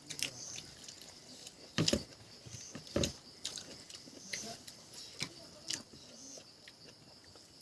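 People eating with their hands: wet chewing and lip-smacking, with scattered short clicks and two louder smacks about two and three seconds in.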